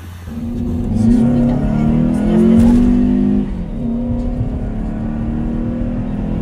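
2.4-litre four-cylinder engine of a Honda Accord breathing through a short ram intake, pulling away and rising in pitch and loudness over the first three seconds. It drops suddenly a little past halfway, then runs steady as the car cruises.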